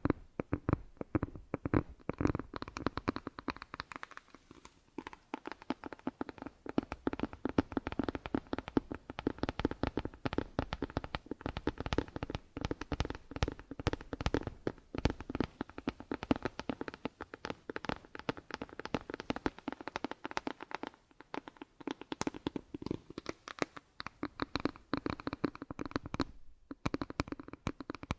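Close-miked ASMR trigger sounds: a dense run of rapid, irregular crackling taps and scratches, many per second, easing off briefly twice.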